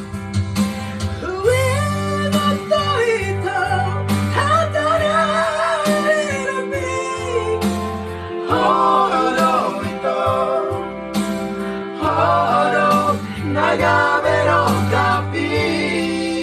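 Several men singing a song together into a microphone, with an electronic keyboard playing held bass notes and chords underneath.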